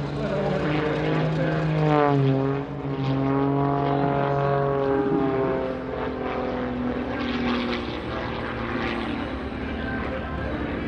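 Zivko Edge 540 aerobatic plane's piston engine and propeller droning overhead. Its pitch drops sharply about two seconds in, then holds steady.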